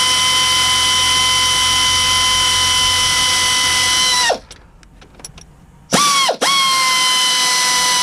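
Pneumatic air gun spinning a freed starter bolt out with a steady high whine. Partway through it winds down with a falling pitch and stops, gives a short blip, then runs steadily again.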